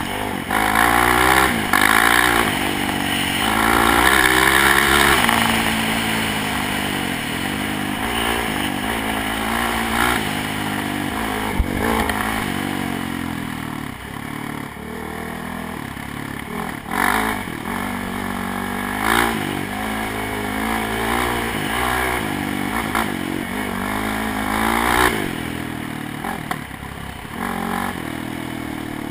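ATV engine revving hard and easing off again and again under the rider's throttle, its pitch climbing and dropping, with the clatter and rattle of the machine over a rough dirt trail and a sharp knock near the middle.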